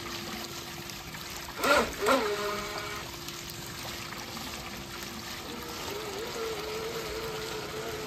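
Swimming-pool water trickling, with a steady low hum underneath. A short loud sound with a bending pitch comes about two seconds in, and a wavering tone begins about halfway through.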